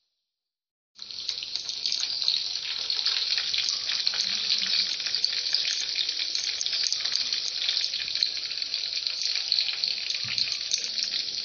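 Battered pumpkin flowers deep-frying in hot oil: a steady, dense sizzle and crackle that starts abruptly about a second in.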